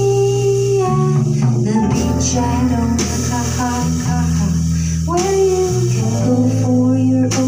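Live band music: a woman singing held, sliding notes over an archtop guitar, with a bass guitar and drum kit playing along.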